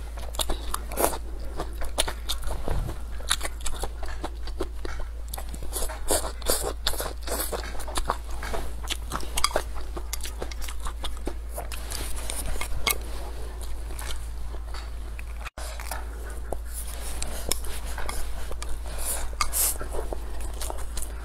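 Close-miked chewing of braised squid, greens and rice: irregular crunchy bites and wet mouth sounds over a steady low hum, broken by a split-second gap about three-quarters of the way through.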